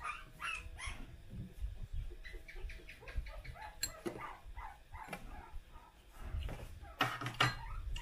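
Short whining animal calls, with spoons and chopsticks clinking against ceramic rice bowls; the sharpest clinks come near the end.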